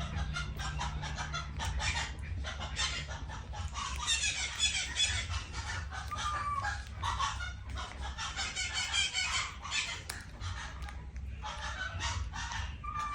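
Rapid, overlapping high-pitched animal calls, loudest in two spells, over a steady low hum.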